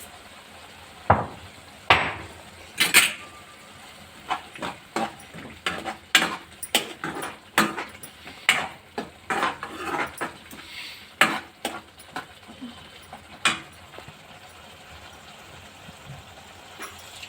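Stirring in a kadai: a utensil clinking and scraping against the pan in irregular strokes, stopping a few seconds before the end.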